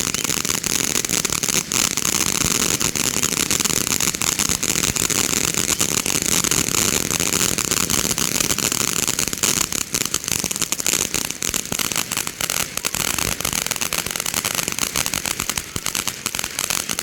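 Fireworks going off: a loud, dense run of rapid crackling pops over a hiss, stopping abruptly near the end.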